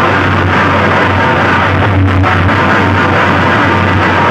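Music played at very high volume through a wall of horn loudspeakers on a DJ sound-competition rig. It is loud and dense throughout, with a strong, steady deep bass.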